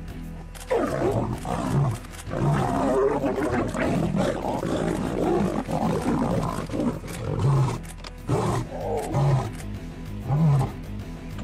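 Lions snarling and growling in a fight between a male lion and lionesses, breaking out sharply about a second in and going on as a string of rough growls and roars, over background music.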